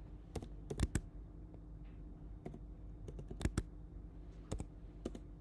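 Keys being typed on a computer keyboard: a dozen or so sharp clicks in small irregular clusters, over a faint steady hum.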